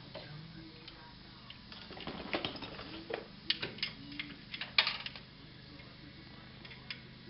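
A quick cluster of clicks, clinks and knocks, with most of it coming from about two to five seconds in: metal hardware being handled against the winch mount, as bolts and tools are worked into place by hand under the front of a utility vehicle.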